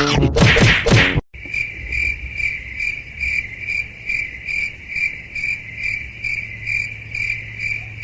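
A loud burst of sound cuts off sharply about a second in. Then crickets chirp: a steady, high pulsing trill that repeats about two to three times a second.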